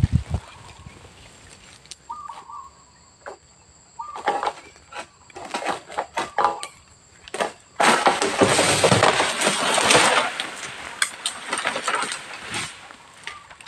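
Pole sickle working in the crown of an oil palm: a series of short scraping, cutting strokes against the fronds. About eight seconds in, a sudden loud rustling rush lasts about two seconds, followed by scattered clicks and scrapes.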